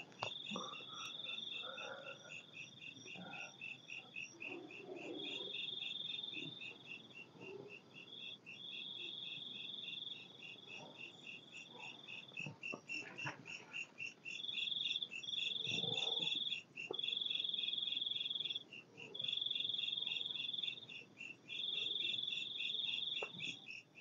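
Night insects, crickets, calling together: one keeps up a steady pulsing chirp of several pulses a second, while another gives a high buzzing trill in phrases of one to two seconds every few seconds. Faint footsteps and rustling of corn leaves underneath.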